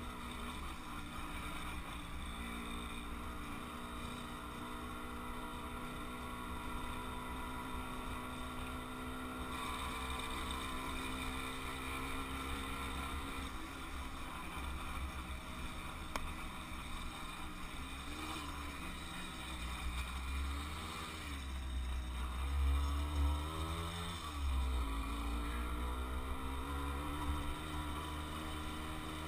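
Kreidler two-stroke moped engine running on the move. Its pitch falls and rises several times in the last third as the throttle is eased and opened again, over a low rumble.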